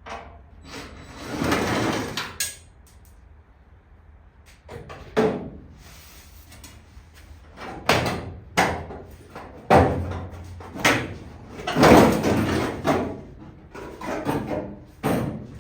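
Hands-on workshop handling noise: sliding, scraping swishes and several sharp knocks as panel or pattern material is moved and fitted.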